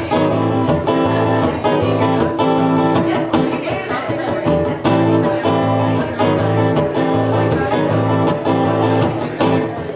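Acoustic guitar strummed in a steady country rhythm, about two strums a second, playing a song's instrumental intro.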